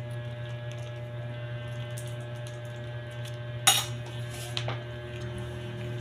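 Dishes and utensils being handled: a few light clicks, then one sharp clink about two-thirds of the way through and a smaller one just after, over a steady low electrical hum.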